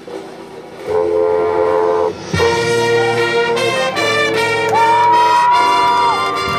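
High school marching band playing loud sustained brass chords, coming in about a second in after a quieter start, with a brief break about two seconds in. From around the middle a high note slides up, is held above the chords, and slides away.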